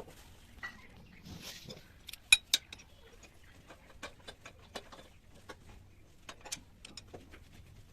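Scattered metallic clicks and clinks of hand tools and metal parts being handled, with two sharp louder clinks about two and a half seconds in.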